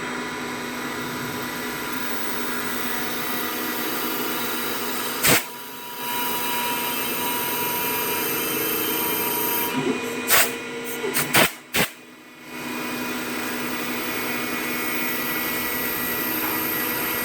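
CNC lathe running, a steady machine whine made of several held tones. A sharp click about five seconds in is followed by a brief lull, and a cluster of clicks at ten to twelve seconds in comes before another short lull, after which the running sound resumes.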